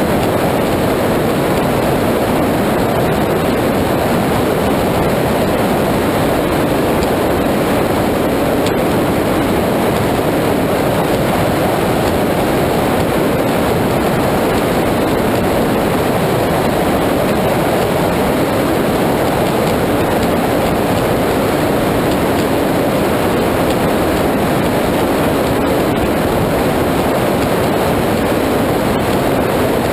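Steady loud rush of wind, engines and water from a high-performance powerboat running at speed, picked up by a camera mounted on its deck.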